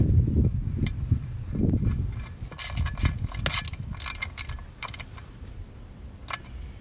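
3/8-inch ratchet clicking in quick runs as it snugs the drain bolt into a Suzuki Burgman 400's final drive case, with a single click near the end. A low rumble fills the first couple of seconds.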